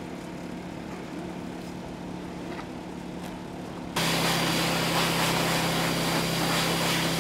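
A steady motor hum, then about four seconds in a sudden jump to the loud, steady rush of a high-velocity dog grooming dryer blowing through a hose, with a low motor hum under it.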